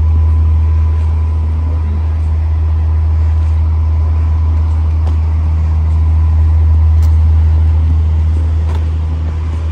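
Steady low rumble of distant city traffic, with a faint steady tone above it.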